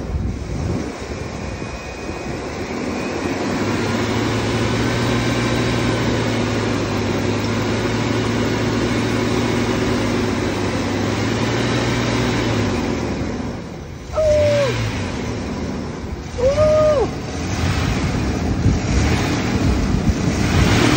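A 2005 Chevy Blazer's 4.3-litre V6 is revved up a few seconds in and held at a steady raised speed for about nine seconds, then let back down. It is revved to draw down the coolant level while egg-and-pepper mixture is poured into the cracked radiator. After it drops, two brief higher-pitched sounds come a couple of seconds apart.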